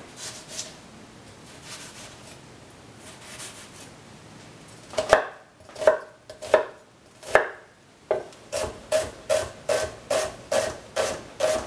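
Chef's knife cutting a halved onion on a wooden cutting board. A few spaced knife strikes come about five seconds in, then a steady run of strikes on the board, a little over two a second.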